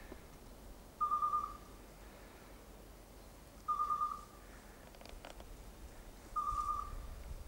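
Electronic beeper collar on a hunting dog, giving a short steady beep three times, about every two and a half seconds: the slow repeating signal such collars give when the dog stands on point. A single light crack, like a twig snapping, comes a little past the middle.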